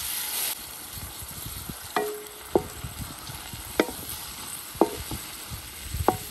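Chopped onions sizzling in hot ghee in a kadhai, stirred with a metal spoon that strikes the pan with a ringing clink several times, about once a second from two seconds in.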